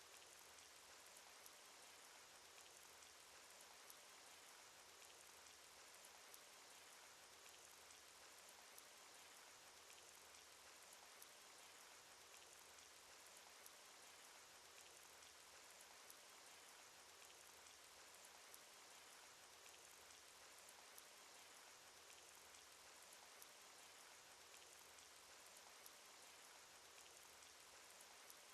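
Faint, steady cartoon rain sound effect: an even hiss of rainfall with scattered light drop ticks.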